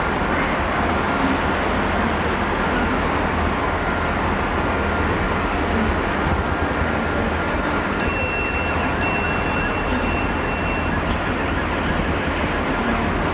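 Long freight train of box-bodied bogie wagons rolling steadily past, a continuous noise of wheels on rail. About eight seconds in, a thin high tone sounds for about three seconds, broken twice.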